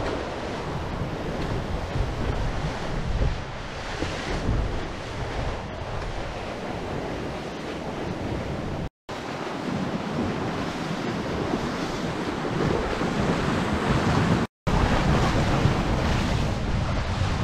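Water rushing and breaking along the hull of a small racing sailboat under sail, with wind buffeting the microphone. The sound drops out briefly twice, about nine and fourteen and a half seconds in.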